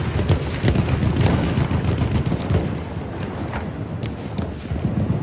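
Battlefield sound effect: many scattered gunshots at irregular intervals over a continuous low rumble. The firing is densest in the first half and thins a little near the end.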